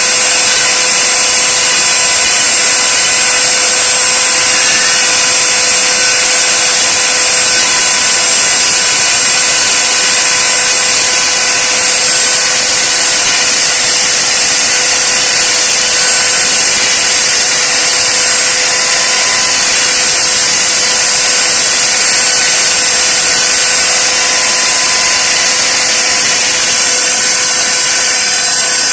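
YILMAZ copy-routing machine's router motor running at a steady high speed, a loud even whine with no change in load.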